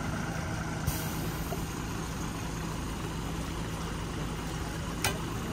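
Heavy diesel engine idling steadily, with two sharp knocks, one about a second in and one near the end.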